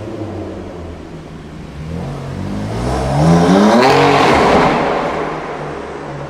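A supercar's engine accelerating hard past, its pitch rising over about two seconds. It gets loudest a little past the middle, then drops in pitch and fades as the car moves away.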